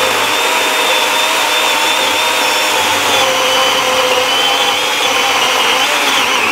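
Worx cordless battery chainsaw cutting through a log under heavy downward pressure: a steady electric-motor whine over the rasp of the chain in the wood. The pitch wavers and sags a little under the load, dropping lower near the end, but the saw never stalls.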